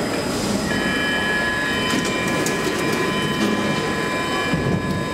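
Stockholm metro train in the station, giving a steady high-pitched whine of several tones over the rumble of the platform, with a few sharp clicks about two seconds in.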